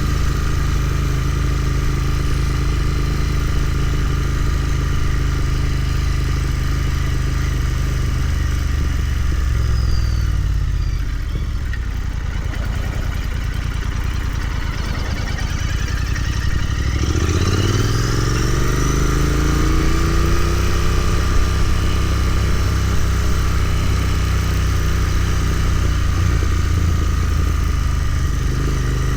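Royal Enfield Continental GT 650's 648 cc parallel-twin engine running on the move, steady at first, then falling in pitch about ten seconds in as the bike slows, and rising again from about halfway as it accelerates back up to a steady cruise.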